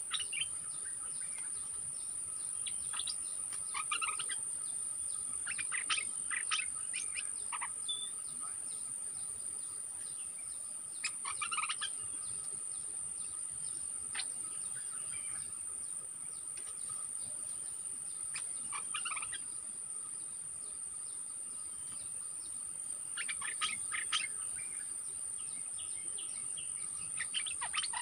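Bulbul calls in short bursts of quick notes every few seconds, over a steady high-pitched insect drone.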